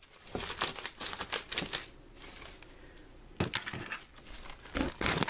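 Plastic sandwich bags crinkling and rustling in a wicker basket as it is handled, in short spells with a lull about two seconds in and a louder rustle near the end.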